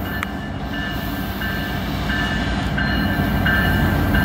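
Approaching CN freight train with two diesel locomotives: a low rumble that slowly grows louder, over a bell ringing in a steady repeating pattern, about three rings every two seconds.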